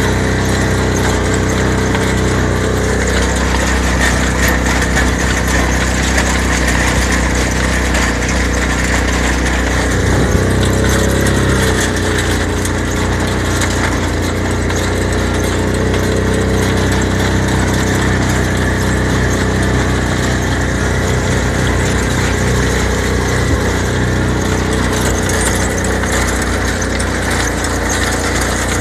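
ATV (four-wheeler) engine running steadily while it pulls a hay rake across a field, heard from the rider's seat, with small shifts in its note.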